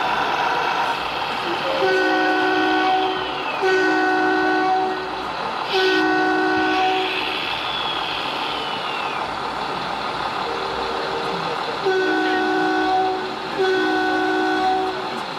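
Two-tone air horn from an RC model truck's sound unit, blown in a string of blasts about a second long: three in quick succession, a pause, then three more.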